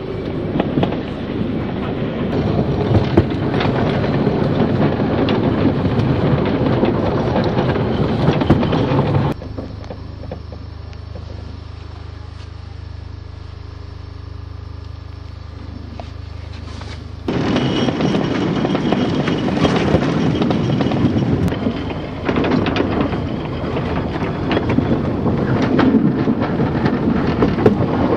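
Riding noise aboard a narrow-gauge steam train: the wheels clatter over the rails with many sharp clicks, mixed with rushing wind. For about eight seconds in the middle the sound drops to a quieter low hum with faint clicks, then the loud clattering returns.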